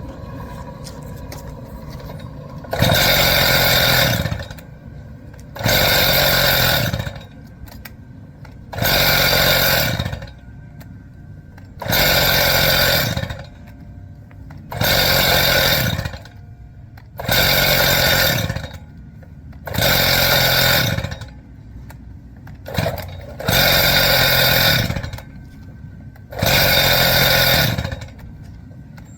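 Stihl TS 420 cut-off saw's two-stroke engine, hot, idling and then repeatedly snapped to full throttle for about a second and let drop back to idle, about nine times roughly every three seconds. This is a test of the tune after a crankshaft, bearing and carburetor rebuild: it revs up cleanly and returns to a steady idle each time.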